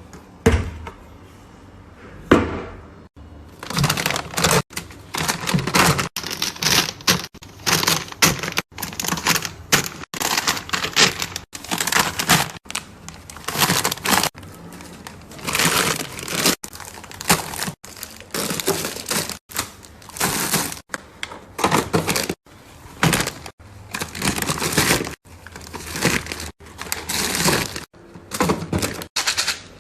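Rapid handling noise of household items being sorted and put away: crinkling and rustling packaging with clacks and knocks, in short snippets that cut off abruptly.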